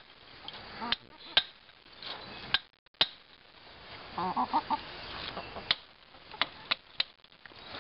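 A hammer striking a rusty steel fence stake, driving it into the ground: about seven sharp blows at irregular spacing, the loudest about a second and a half in. Hens cluck in a short run about four seconds in.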